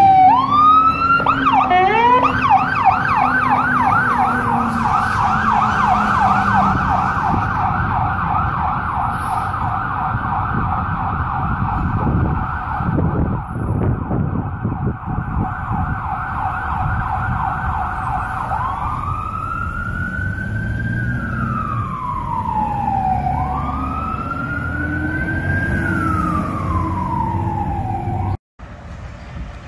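Aerial fire truck's siren responding, cycling fast in a yelp for about the first eighteen seconds, then switching to a slow wail that rises and falls twice, over the truck's engine. Near the end it cuts to another siren sweeping up.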